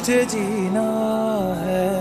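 Slow soundtrack music, its melody moving in long held notes that slide between pitches.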